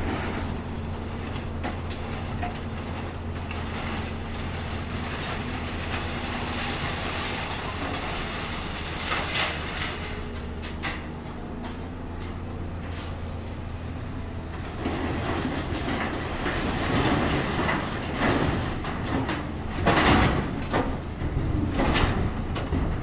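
Wheel excavator's diesel engine running steadily while scrap metal is handled, with scattered metal clanks and knocks. About two-thirds of the way in the engine's steady hum gives way to busier scraping and clattering, with a few sharp metal impacts near the end.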